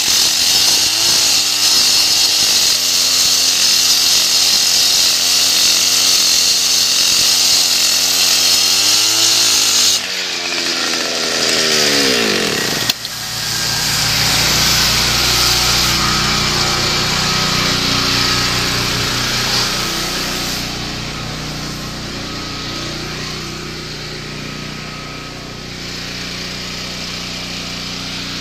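Engine-driven concrete saw cutting a crack control joint into a concrete slab: a loud, high grinding hiss over a wavering engine note. About ten seconds in the cutting stops and the engine falls in pitch, then runs on at a lower, steadier speed, growing quieter near the end.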